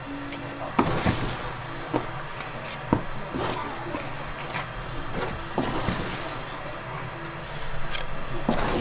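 Metal scrapers scraping and knocking on a metal slab as thick, half-set brown sugar is stirred and spread to cool: irregular sharp scrapes and taps, about one or two a second, over a steady low hum.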